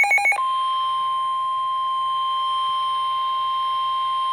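Emergency Alert System tones. Rapid pulsed data bursts of the digital header end about half a second in. Then the single steady National Weather Service 1050 Hz warning alarm tone sounds, signalling a severe thunderstorm warning.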